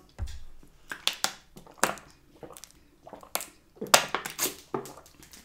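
Thin plastic water bottle crackling and crinkling in the hand as a person drinks from it, in a string of irregular sharp crackles.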